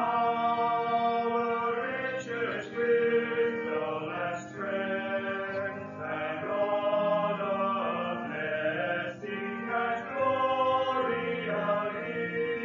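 Voices singing together with a church organ accompanying them in sustained chords.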